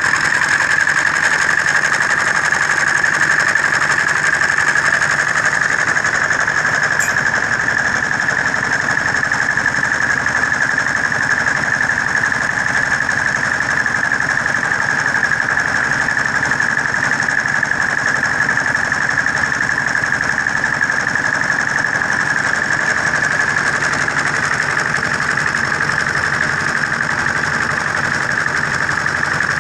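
Diesel engine driving a concrete mixer/blender, running steadily with a constant high-pitched tone over the engine noise.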